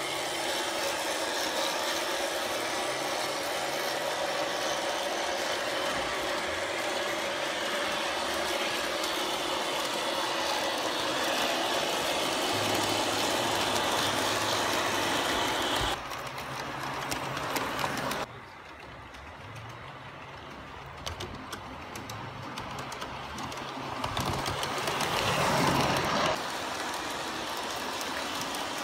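Garden-scale model steam tank locomotive running along the track with its coaches: a steady whir of the electric motor and gears, with the wheels running on the rails. It drops quieter a little past halfway, then swells again near the end.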